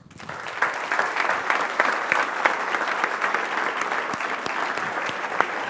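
Audience applauding. The clapping starts abruptly and swells within the first second into steady, dense applause.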